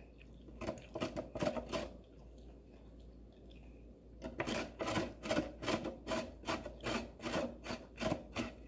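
Carrot being broken into small chunks by hand over a wooden board: short snapping and scraping sounds, a few faint ones at first, then a quick regular run of about four a second from about four seconds in.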